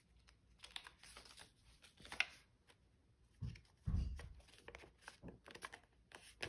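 Paper rustling and crinkling as hands fold and press glued paper cut-outs together, with scattered light ticks. About four seconds in comes the loudest sound, a soft low thump with rustling.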